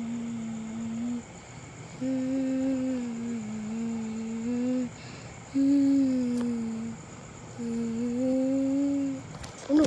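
A person humming in long, held notes that glide gently up and down, with short pauses between phrases. A brief, louder rising sound comes just before the end.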